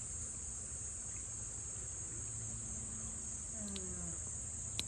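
Steady high-pitched drone of insects calling, with a faint low rumble underneath and one sharp click near the end.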